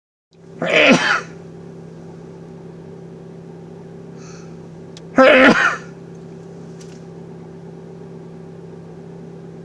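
A man sneezing loudly twice, about a second in and again about five seconds later, over a steady low hum.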